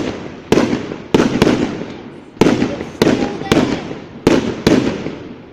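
Fireworks display: aerial shells bursting in a rapid series of sharp bangs, about eight in five seconds, each followed by a fading echo.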